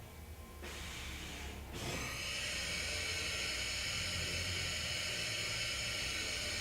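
Steady compressed-air hiss from a Chevalier 2040 vertical machining center during its automatic tool change, starting about two seconds in after a shorter burst of noise, over the machine's low hum.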